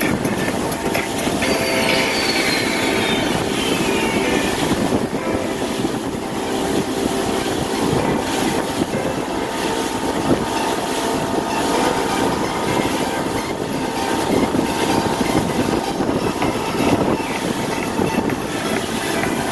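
A 1995 Pursuit fishing boat's engine running steadily, with a constant rushing noise over it.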